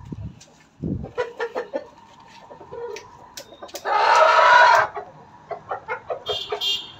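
Lakha Aseel rooster clucking in short, quick notes in two runs, with a loud rough burst about a second long near the middle, and a couple of low thumps near the start.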